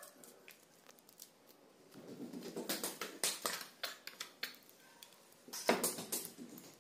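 Pomelo flesh being pulled apart by hand: the segment membrane tearing and the juice sacs crackling wetly in quick clusters of crackles, strongest about three seconds in and again near six seconds.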